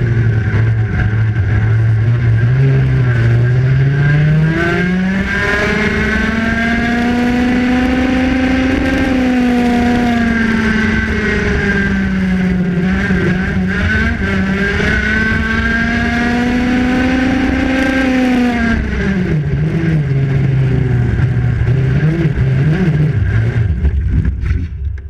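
Go-kart engine heard from on board, its pitch rising and falling with the throttle: low for the first few seconds, climbing about five seconds in and holding high, dipping twice, then dropping and wavering unsteadily near the end before cutting off suddenly.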